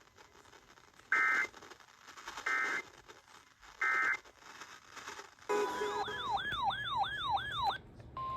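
Three short bursts of Emergency Alert System digital data tones, about a second and a half apart: the end-of-message signal that closes a broadcast weather warning. About five and a half seconds in comes a fast electronic warble that rises and falls several times a second, and near the end a steady single-pitched alert tone begins.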